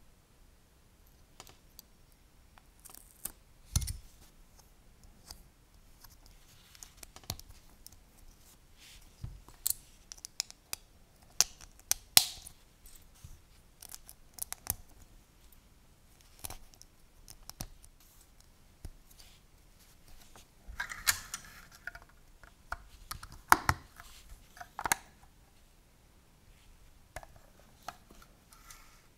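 Scattered small clicks, taps and soft scraping of hands handling LEGO plastic pieces, a sticker and a hobby knife while a sticker is fitted to a clear windscreen piece and the piece is fitted to a toy ambulance.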